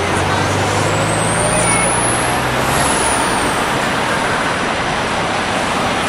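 Steady, loud roar of falling water from Niagara Falls, an even rushing hiss with no pauses. A low steady hum sits beneath it and stops about halfway through.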